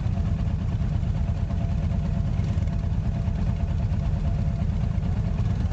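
Motorcycle engine idling steadily at close range, a low, even running sound.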